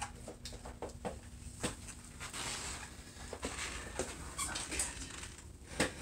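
Faint scattered clicks and rustling as a digital X-ray sensor cable and its plug are handled and plugged in, with a sharper click near the end.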